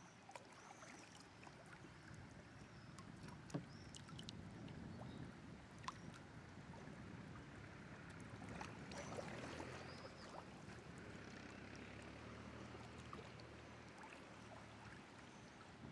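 Faint water sounds of a canoe moving on a river, with paddle and water lapping at the hull, and two sharp clicks about three and a half and six seconds in.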